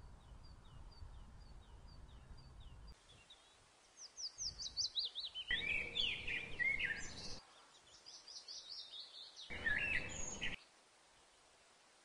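European robin singing: two bursts of rapid, high, falling notes, the first about four seconds in and lasting some three seconds, the second a shorter phrase near ten seconds. Before them, for about three seconds, a faint high chirp repeats about twice a second over a low rumble.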